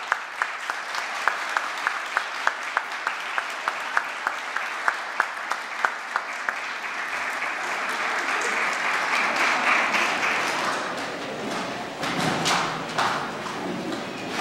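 Audience applauding, with sharp claps in a steady rhythm of about three a second for the first six seconds; the applause then swells to its loudest around ten seconds in and thins out.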